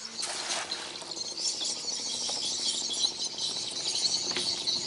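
A thrown cast net hitting the water in a short splash about a quarter of a second in, followed by a steady, crackly high hiss.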